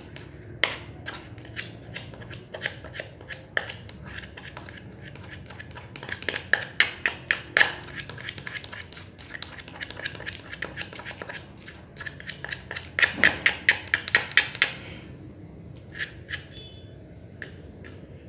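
Clear-glue slime being kneaded and squeezed by hand, giving sticky wet clicks and pops, in two dense rapid runs, about six seconds in and again about thirteen seconds in.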